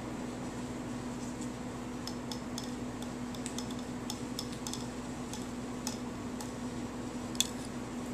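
Light, scattered clicks and clinks of a kitten at its small food dish, over a steady low hum; one sharper click comes near the end.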